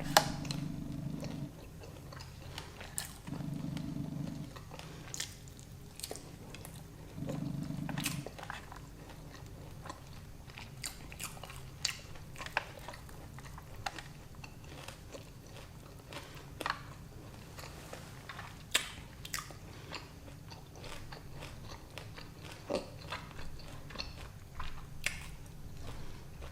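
Close-miked chewing and biting of a person eating, with scattered sharp mouth clicks and smacks throughout.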